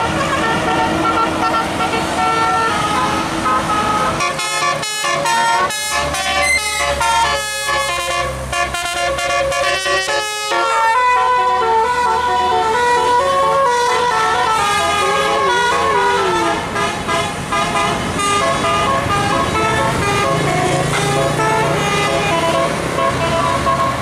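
Tourist bus's telolet musical air horns, roof-mounted trumpets, playing a tune of stepped notes. From about 4 to 10 seconds in the notes come fast and chopped, then the horns play longer held notes.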